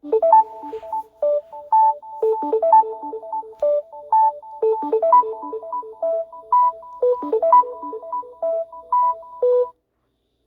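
A phone ringtone playing a quick melody of short electronic notes, often two at a time, that stops shortly before the end.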